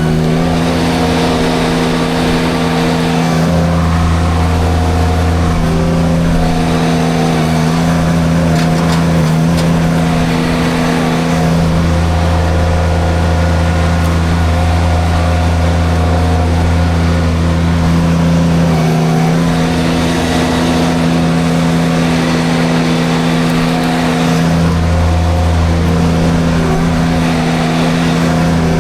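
Mini skid steer engine running steadily at high speed while driving a drum forestry mulcher through brush. Its low drone grows heavier for stretches, a few seconds in, for much of the middle and again near the end.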